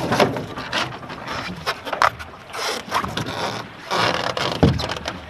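Irregular scraping and rustling in the cockpit of a Finn dinghy as the sailor shifts his weight, his clothing and gear rubbing against the hull, with louder swishes about two, three and four seconds in and a dull knock near the end.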